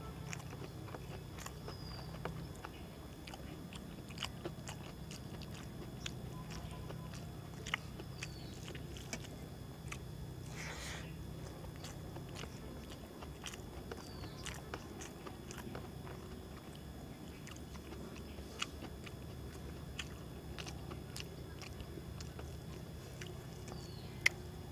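Close-up mouth sounds of a man eating rice by hand: chewing, with many short wet clicks and smacks of the lips and tongue scattered irregularly. A steady low hum runs underneath.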